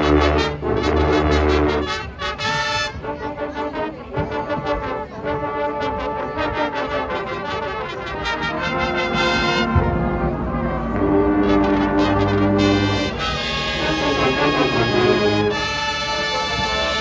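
High school marching band playing a brass-led passage: trombones and trumpets hold chords that change every second or two, over low drums.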